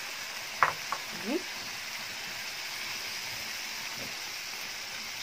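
Hot oil sizzling steadily, from potatoes frying in a pot of oil and a pan of green peppers with chopped tomatoes just added.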